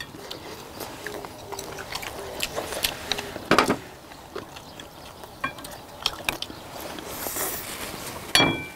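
Eating at a table: many small clicks of chopsticks against ceramic bowls and plates, with chewing. There is a louder knock about three and a half seconds in, and a sharp clink near the end that rings briefly.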